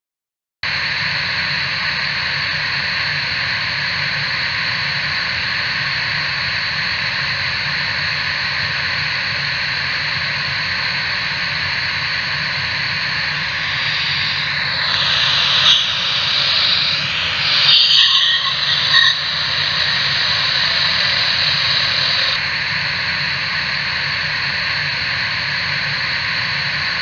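Loud, steady static hiss like an untuned television, cutting in suddenly just after the start. Between about 14 and 19 seconds, wavering, sweeping sounds rise over the hiss.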